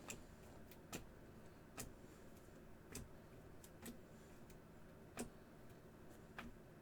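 Near silence with faint room hum and short sharp clicks, unevenly spaced at roughly one a second.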